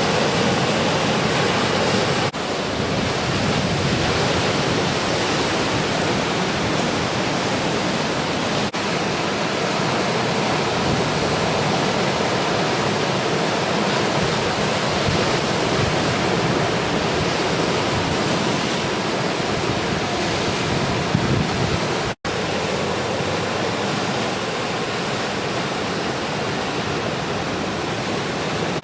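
Steady, continuous noise of post-typhoon surf breaking at a river mouth, with no distinct individual wave crashes. The sound cuts out for an instant about two-thirds of the way through.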